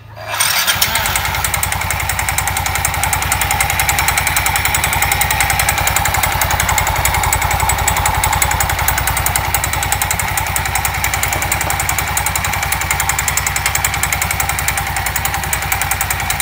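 Yamaha Soul GT 125 scooter's single-cylinder four-stroke engine running steadily with the CVT cover removed, its drive belt and variator spinning in the open. It starts abruptly about half a second in.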